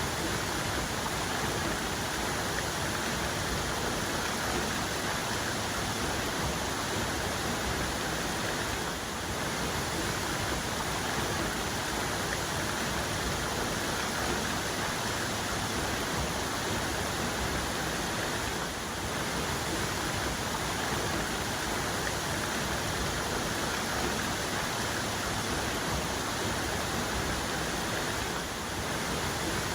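Waterfall's main cascade pouring steadily: a continuous, even rush of falling water.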